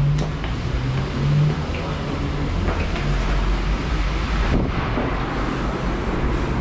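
Steady low rumble of street traffic with a faint engine hum, and a few light clicks on top.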